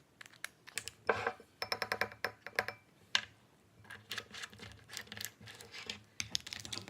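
Small plastic glitter bottle being handled: a run of light clicks, taps and scrapes as its cap is unscrewed and glitter poured out, with a short squeak about a second and a half in.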